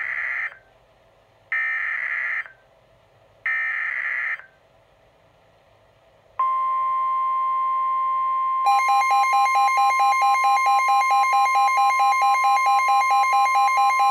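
NOAA Weather Radio Specific Area Message Encoding (SAME) alert header: three one-second bursts of screeching digital data tones about two seconds apart. About six seconds in, the steady 1050 Hz warning alarm tone starts. A few seconds later a Midland WR-120 weather radio's own rapid pulsing alert beep joins it, about four beeps a second. Together they herald a tornado warning broadcast.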